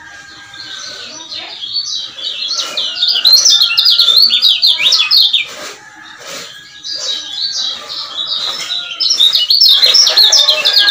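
Male lemon-bellied white-eye (kecial kuning) singing a fast, chattering twitter of high notes, in two long bouts with a short break about halfway through.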